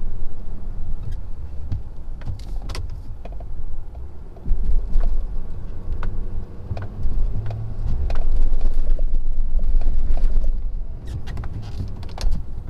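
Ford F-250's 6.7-litre Power Stroke V8 turbodiesel running in four-wheel-drive low as the truck pushes heavy wet snow with its plow. It is a low rumble that swells louder twice, longest from about eight to ten and a half seconds in, with scattered clicks and knocks over it.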